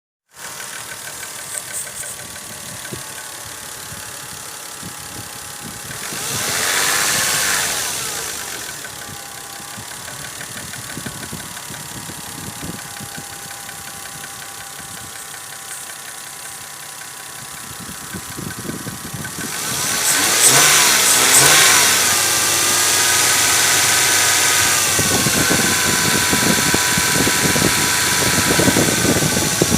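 Toyota VVT-i petrol engine running with a knock from the VVT-i camshaft coupling (cam phaser). The engine is blipped once about six seconds in and settles back to idle. From about twenty seconds in it is held at higher revs.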